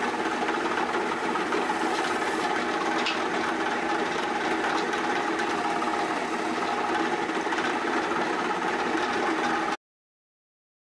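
Wood lathe running steadily, a constant mechanical hum with a rattle while the spinning workpiece is polished; it cuts off abruptly near the end.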